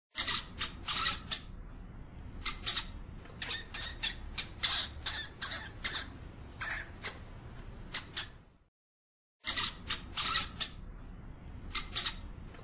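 European hamster (Cricetus cricetus) calling with short, sharp, high-pitched squeaks, given in quick clusters of several. There is a break of about a second roughly three quarters of the way through.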